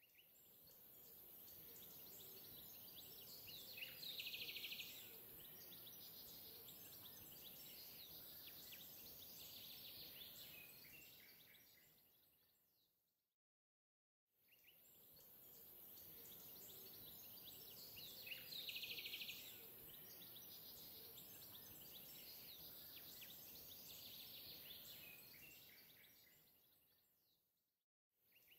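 Faint background ambience of bird chirps and calls over a steady hiss. The same stretch plays twice, fading out and back in about halfway through.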